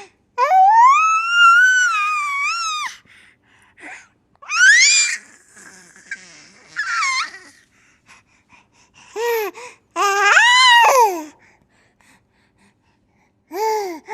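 A young child's high-pitched squealing and babbling in about six bursts with short pauses between them, the longest lasting over two seconds near the start; the pitch swoops up and down within each burst.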